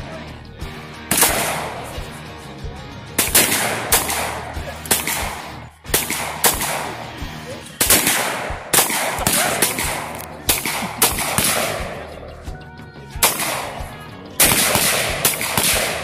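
Handgun shots from several shooters firing at once, a Taurus Tracker .44 Magnum revolver among them: about a dozen sharp reports at irregular intervals, some close together, each trailing off.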